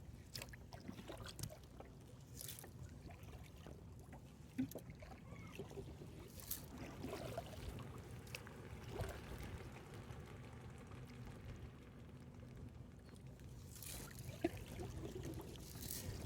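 Faint water sounds: soft trickling and lapping, with a few swishes and a couple of light knocks.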